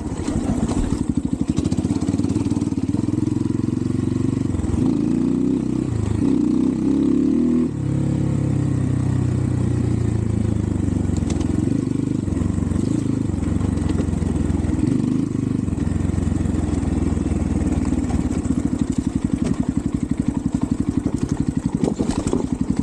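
Xpro Templar X 250cc dirt bike engine running, its pitch rising and falling over the first several seconds as the throttle is worked. It then settles into a steady idle with an even, throbbing beat.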